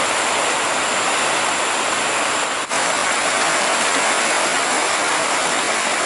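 Steady rushing of river water, an even hiss, with a brief dropout about two and a half seconds in.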